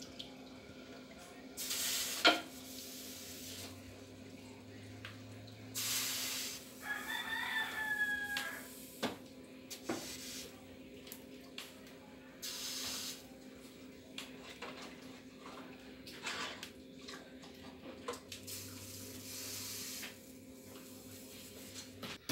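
Pieces of raw beef dropped one by one into a pot of boiling water, each landing with a short splash, over a steady hum. A rooster crows once about seven seconds in.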